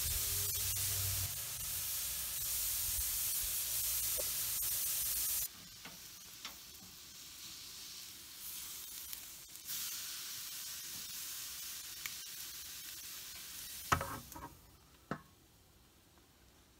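Marinated flank steak sizzling as it sears on the hot grate of a lump-charcoal kettle grill. The hiss is loud for about five seconds, then drops off sharply to a quieter sizzle, and there are a few sharp knocks near the end.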